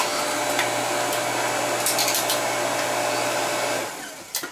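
Electric log splitter's motor and hydraulic pump running with a steady hum while the ram drives through a log. The hum winds down about four seconds in, followed by a couple of light knocks.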